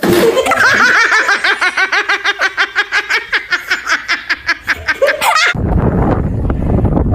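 A person laughing in a long, rapid run of pulses lasting about five seconds, which stops abruptly. It is followed by a steady rushing noise, like wind on the microphone.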